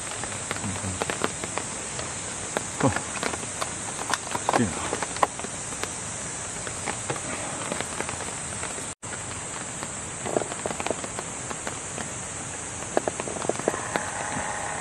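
Steady high chorus of night insects, with scattered light clicks and taps of a plastic container being handled. Near the end a battery-powered flowing-somen (nagashi somen) machine is switched on and its small motor starts a steady hum.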